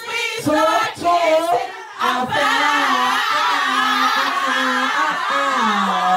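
A group of people singing loudly together along with music. Several voices hold long notes from about two seconds in.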